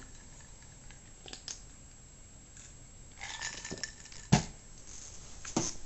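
A Coke being drunk and handled: a short sip partway through, then the drink set down on a hard surface with a sharp knock, and another lighter knock near the end.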